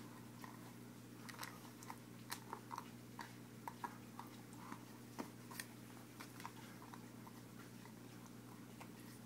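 A dog chewing and gnawing on a toy: soft, irregular clicks and crunches that thin out after about six seconds, over a faint steady hum.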